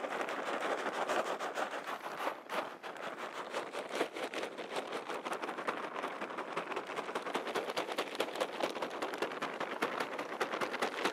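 Steady rain pattering, a dense run of small drop taps that starts suddenly and keeps on evenly.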